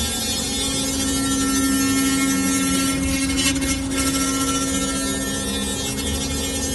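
The spindle of a four-axis CNC router runs at a steady pitch as its router bit carves a block of white foam. A short rough burst of noise comes a little past halfway.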